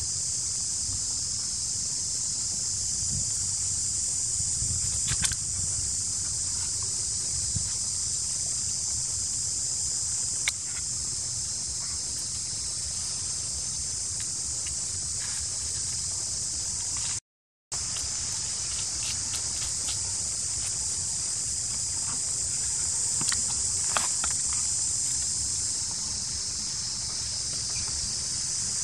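Steady high-pitched insect chorus, an unbroken buzz, with a few short clicks and rustles on top. The sound drops out completely for a moment a little past the middle.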